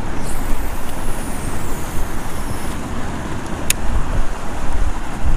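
Steady rush of wind on the microphone and tailrace water. Over it, a baitcasting reel's spool whirs through a cast, a faint high whine that falls in pitch over about two seconds, and the reel clicks sharply once a little later.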